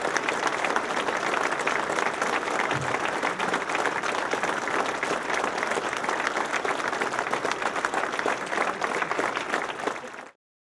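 A large crowd applauding steadily, a dense mass of hand claps that cuts off suddenly near the end.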